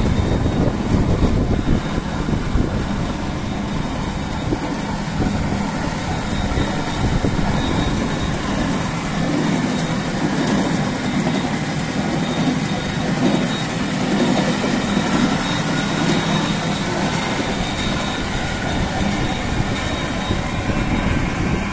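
Inclined conveyor running under power, its drive and chain making a steady, loud mechanical noise.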